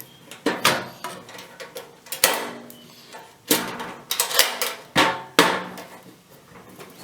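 Drawers of a Craftsman metal tool box being opened and shut on their ball-bearing slides, making a series of metallic clanks, some of which ring briefly.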